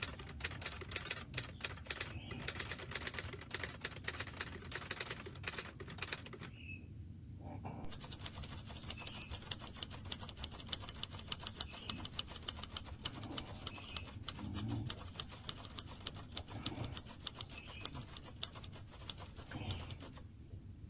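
Fast, dense clicking and scratching that breaks off for about a second and a half some six seconds in, then resumes. A few faint short chirps sound over it.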